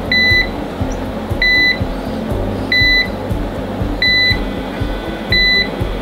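Vaydeer timed lock box's electronic beeper giving short, high beeps about every 1.3 seconds, five in all, as the box goes into its timed lock.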